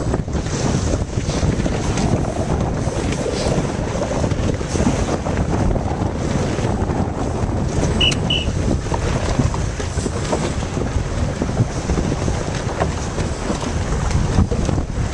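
Wind buffeting the microphone over the wash of choppy water, a steady roar with no let-up. Two short high beeps sound close together about eight seconds in.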